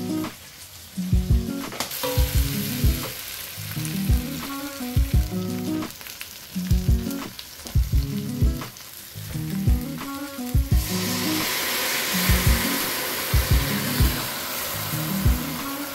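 Vegetables frying and sizzling in a steel pot, the sizzle turning much louder about eleven seconds in, over background music with a steady beat.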